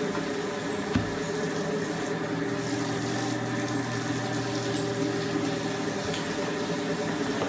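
Motor-driven rotating coating drum running with a steady hum, black-powder-coated rice hulls rushing as they tumble inside it. A single sharp knock about a second in.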